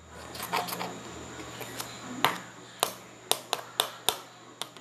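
A string of sharp, short clicks, about seven of them at an uneven pace, starting about two seconds in.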